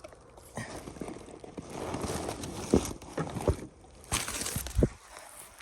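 Footsteps through dry brush and leaves: irregular rustling with a few heavier thumps.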